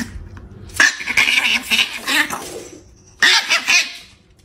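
Chihuahua growling at a cat over a food pouch, in two rough outbursts: a long one, then a short one near the end.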